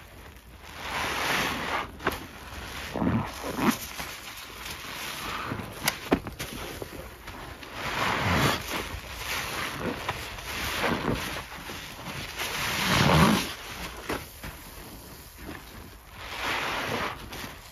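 Wet Ajax cleanser paste squeezed and squished by rubber-gloved hands: irregular wet squelches and swishes every few seconds, with a few sharp clicks, the loudest squelch about thirteen seconds in.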